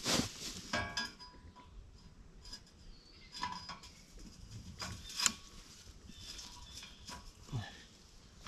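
Steel ladder tree stand sections clanking against each other as they are handled and set down, several sharp knocks each with a brief metallic ring, between rustling and crunching in dry leaf litter.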